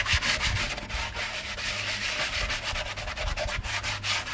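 Crumpled aluminium foil ball scrubbed hard over a cast iron griddle plate in rapid, even back-and-forth strokes, knocking off burnt-on bits.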